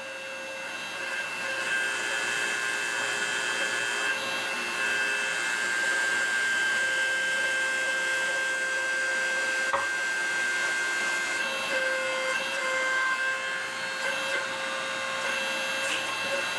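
Hydraulic shop press's pump motor running with a steady hum and whine while the ram presses a steel shaft into the hub of a welding-positioner turntable plate. There is one short click about ten seconds in.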